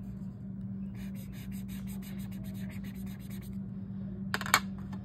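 Felt-tip marker scratching on lined notebook paper in a run of quick back-and-forth strokes, colouring in. Near the end comes one sharp knock, over a steady low hum.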